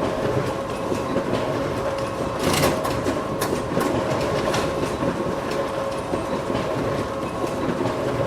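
Photocopier running: a steady mechanical whir with a hum and a rattling clatter, a few sharper clicks about halfway through. It cuts off abruptly at the end.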